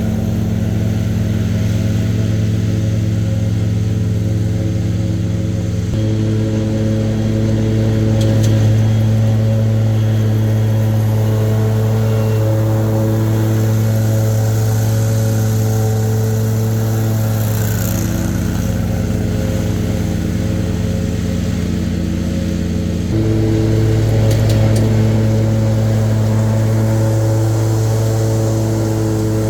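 Lawn mower engine running steadily, its note shifting up or down a few times as it mows.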